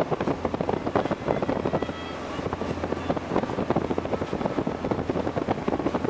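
Wind buffeting the microphone in a rapid, irregular flutter over the steady low drone of a Regal cabin cruiser running under power, its hull moving through the water.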